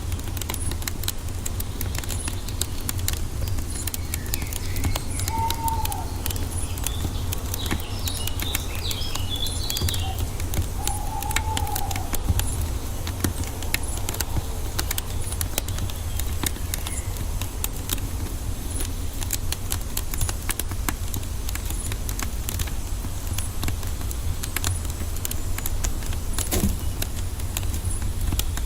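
Wood fire crackling, a constant patter of small pops and snaps over a low rumble. A few short bird calls and chirps sound between about five and twelve seconds in.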